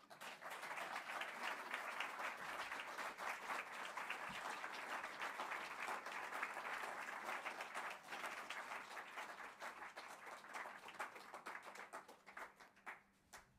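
Audience applauding, thinning out to a few last separate claps before stopping near the end.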